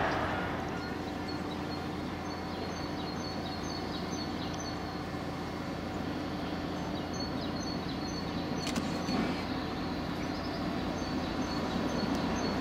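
Distant steam locomotive approaching along a main line: a steady low rumble that grows slowly louder toward the end, with small birds chirping faintly.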